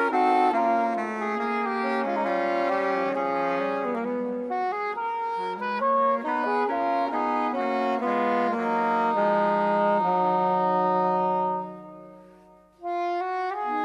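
Wind band playing a harmonised passage, saxophone and brass parts holding and moving between notes together. About twelve seconds in the chord dies away, and a new phrase begins a second later.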